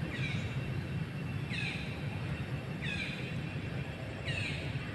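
A bird calling a short falling note four times, about every second and a half, over a steady low rumble.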